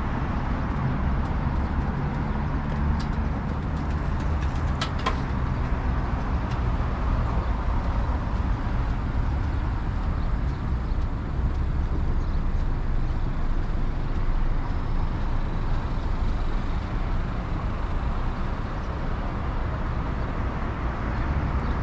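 Road traffic on a multi-lane road: cars and tyres passing, making a steady noise.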